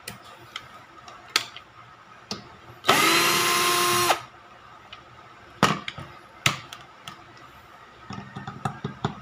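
Black & Decker GC1800 18-volt cordless drill/driver on its highest clutch setting, 22, driving a drywall screw into hard plyboard in one burst of just over a second, its motor whine holding a steady pitch. A few sharp clicks come before and after the run.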